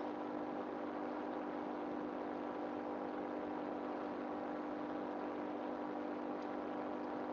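A steady hum over a faint hiss.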